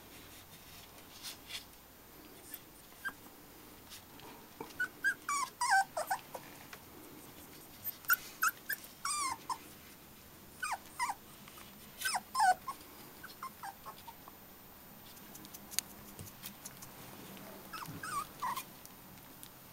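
Litter of young puppies squeaking and whimpering: short high-pitched squeals that bend down in pitch, coming in little clusters through the middle and again near the end.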